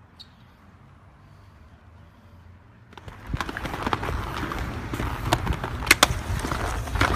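Skateboard wheels rolling on concrete, starting suddenly about three seconds in after a faint low rumble, with several sharp clacks of the board and trucks.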